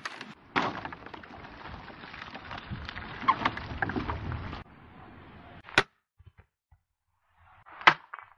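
Test cuts with a hand-forged katana: a sharp hit as the blade slices through a water-filled plastic bottle, followed by a few seconds of noisy rustle. After a short quiet there are two more sharp cracks, the loudest near the end as the blade chops through a pumpkin.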